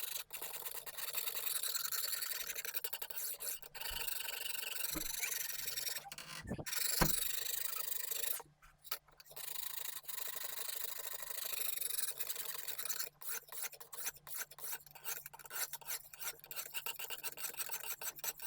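Lansky guided sharpening hone scraping along the steel edge of a kitchen knife in quick repeated strokes at a 25-degree angle, grinding the edge to raise a burr. The stroking breaks off briefly about halfway, with a few light knocks in the first half, and the strokes sound more separate in the second half.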